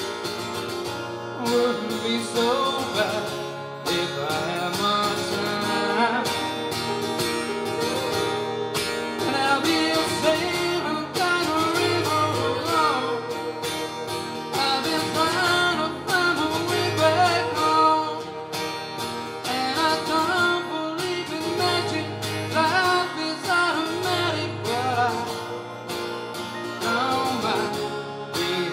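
Live guitar duo: an electric guitar playing lead lines over acoustic guitar accompaniment.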